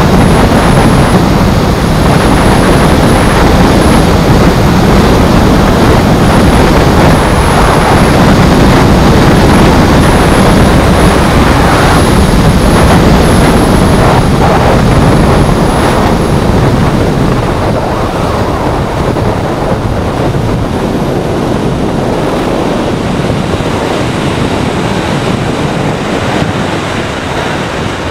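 Honda CBR600 F3 sportbike's inline-four engine running at riding speed under a dense rush of wind noise on the microphone. The sound gets quieter over the last third.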